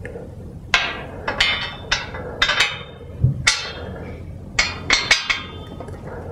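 Metal T-bar clanking against the iron side rails of a bedstead as it is fitted into place underneath them: about a dozen irregular sharp knocks, each with a short metallic ring, bunched in the first and last thirds.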